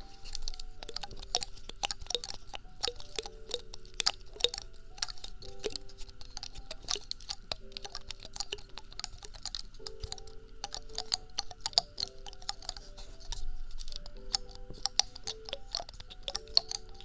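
Rapid, irregular crisp clicks and taps from a small object being handled close to the microphone, several a second, over soft background music.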